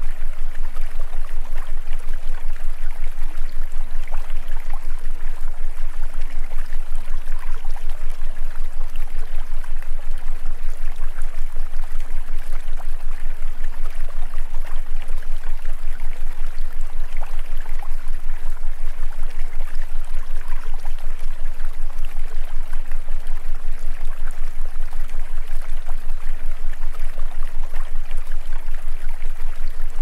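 Steady rush of running water, like a stream, over a constant low hum, with a fast, even pulsing in loudness.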